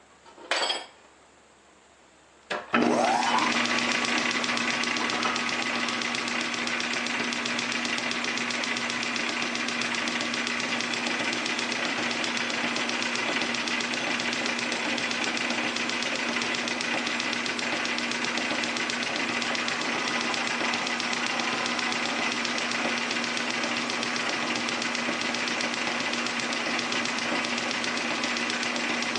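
A short clunk under a second in, then a metal lathe switched on about two and a half seconds in, spinning up quickly and running steadily with a steady hum and a higher whine while the cutting tool faces the end of a metal bar.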